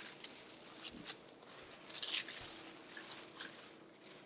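Plastic cling wrap crinkling and rustling faintly in short crackles as a ball of cookie dough is wrapped in it, the loudest rustle about two seconds in.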